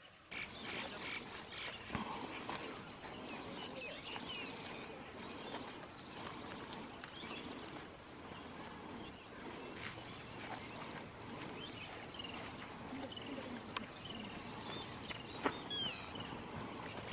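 Outdoor ambience with small birds chirping and calling on and off, over a steady low murmur, with a few isolated sharp clicks.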